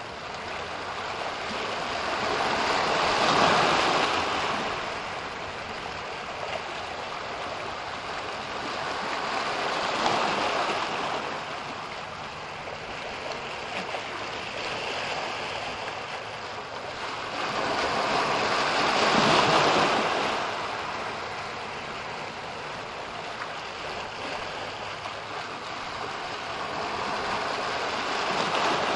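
Ocean waves breaking and washing in. The surf noise swells and fades four times, each surge building and dying away over several seconds.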